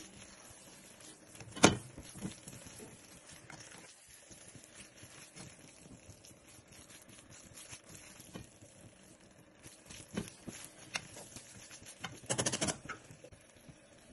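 Slotted spatula knocking and scraping against a frying pan as stir-fried noodles are tossed, with one sharp knock about two seconds in, a few lighter knocks later, and a short rattling burst near the end.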